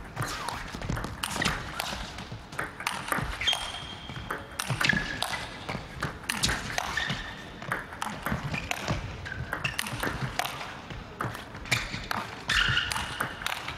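Table tennis ball struck back and forth in a rally: a steady run of sharp clicks as it hits the rackets and bounces on the table.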